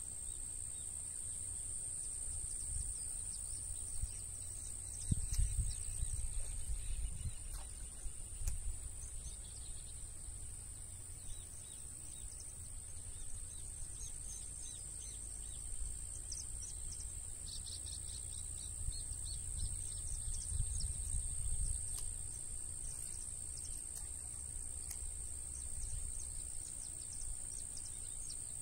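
Steady, unbroken high trill of an insect chorus such as crickets, with a low rumble underneath and scattered short bird chirps.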